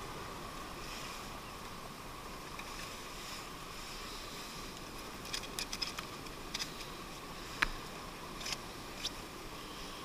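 Steady sea and wind noise on the shore. In the second half comes a cluster of small clicks and taps, with one sharper click about three-quarters through, as a caught sea bass is unhooked from a soft-plastic lure by hand.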